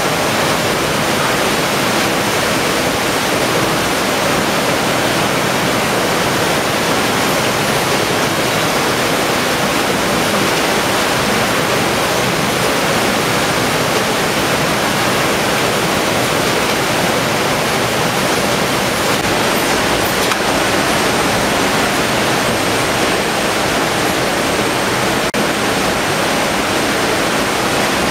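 Steady, even rushing din of a fish processing line.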